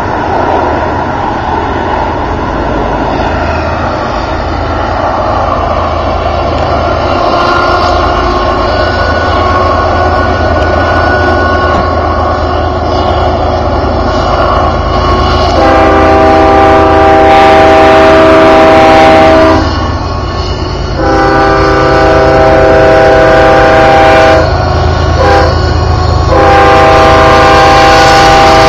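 A lashup of BNSF diesel-electric locomotives working upgrade with a steady heavy rumble. About halfway through, the lead unit's multi-chime air horn sounds: two long blasts, shorter ones, then another long blast near the end.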